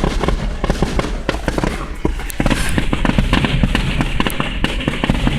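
Dense barrage of firework explosions, many sharp bangs overlapping in quick succession, typical of a fireworks grand finale.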